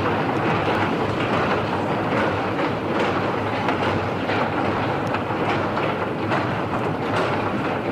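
Escalator running: a steady mechanical rumble with a low hum and a light rhythmic clacking, about one or two clicks a second, as the steps travel.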